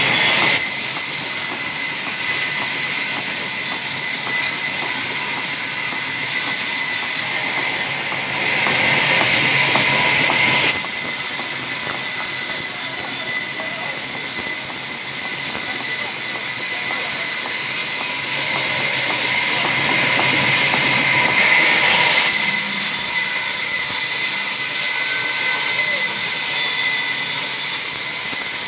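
Large vertical band saw ripping wooden boards: a steady high-pitched whine and hiss from the blade cutting, changing in tone a few times as boards are fed through.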